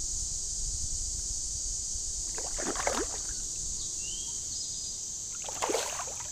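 Steady high-pitched insect chorus over a low rumble of moving water, with two short splashes, one about three seconds in and one near six seconds, as a hooked carp thrashes in the shallow creek.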